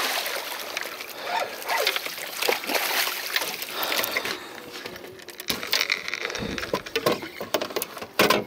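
A hooked striped bass splashing and thrashing in a landing net at the side of the boat. Later come a series of sharp knocks and clatter as the net and fish are hauled over the gunwale onto the deck.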